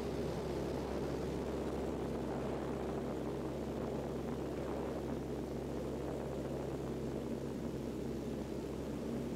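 Aircraft engine and propeller heard on board: a steady drone with a constant low hum and an even rush of noise, no change in pitch.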